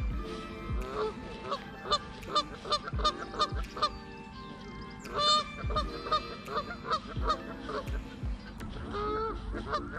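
Geese honking over and over, many short calls overlapping, loudest about five seconds in, with a few low bumps underneath.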